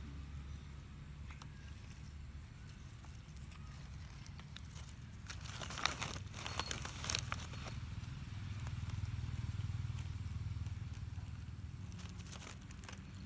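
Dry fallen leaves crackling and rustling in a short cluster midway as a cat noses and rubs its head through them, over a steady low hum.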